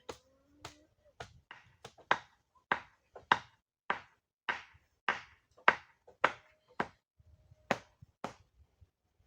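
A steady run of sharp blows, about two a second, some much louder than others, each with a short ring after it.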